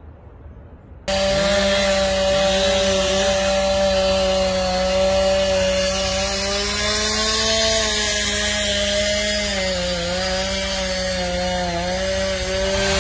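Chainsaw running steadily at high speed, cutting in abruptly about a second in, with its pitch dipping slightly around ten seconds in.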